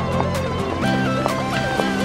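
Background music: a melody stepping between held notes over sustained low notes, with a steady beat.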